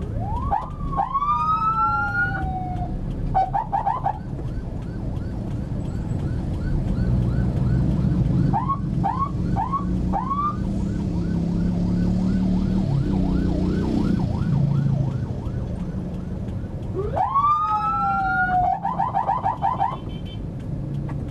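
Electronic siren sounded in short manual bursts: a rising and falling whoop near the start and again about 17 seconds in, each followed by a quick warbling blip, and four short rising chirps around the middle. Heard from inside a car over a steady low rumble of engine and traffic.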